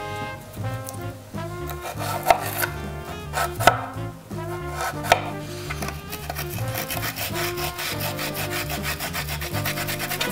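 A knife cutting a piece of fresh ginger on a wooden cutting board, with a few sharp knocks of the blade on the board. From about six seconds in, the ginger is rubbed fast back and forth on a flat metal grater, an even scraping rasp.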